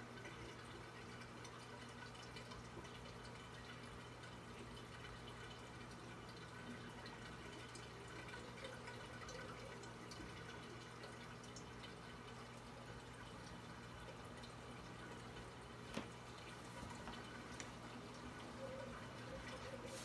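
Faint trickling and dripping of a reef aquarium's circulating water over a steady low hum, with small scattered ticks and one sharp click about sixteen seconds in.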